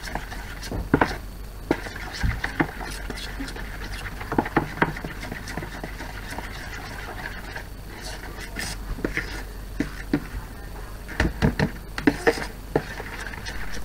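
A metal teaspoon stirring thick icing in a plastic bowl: irregular clicks and scrapes against the bowl, with a dense run of knocks near the end.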